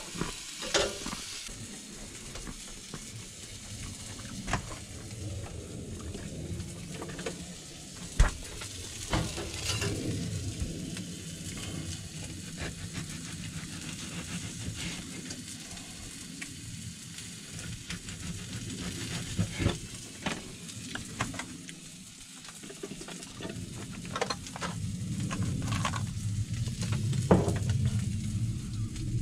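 Hot dogs sizzling steadily in a cast iron frying pan, with scattered clicks and knocks of utensils and food packages being handled, busier near the end.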